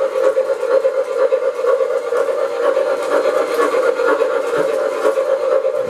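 MTH O-gauge New York Central model train running on the layout, giving off a steady hum with no break.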